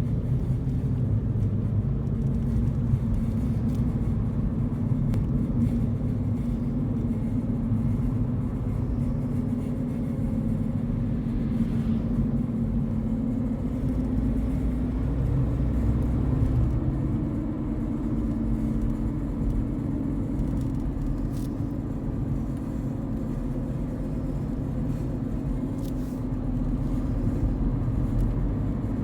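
Volkswagen Cross Polo (6R) on the move, with a steady low drone from the front wheel hub bearings, a sign that the bearings are worn. The drone steps up slightly in pitch a little past halfway.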